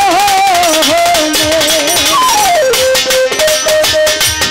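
Live folk band music: a sung phrase ends in the first second, then an instrumental interlude in which a lead instrument plays a stepwise melody falling in a run about two seconds in, over steady drumming.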